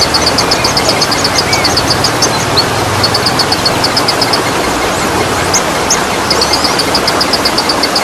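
Waterfall rushing steadily, with a bird repeating trains of short high chirps at about five a second; the chirping pauses about halfway through, then starts again. A few other bird whistles sound now and then.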